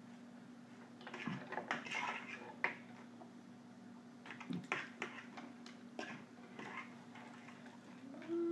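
Scattered light clicks and taps of a toddler eating, with brief vocal sounds about a second in and again near the end, over a steady low hum.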